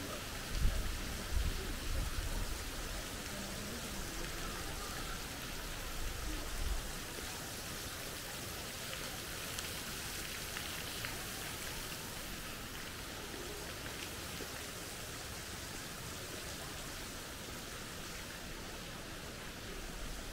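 Steady, rain-like hiss of thin water jets splashing into a garden pond. A few low thumps on the microphone come in the first several seconds.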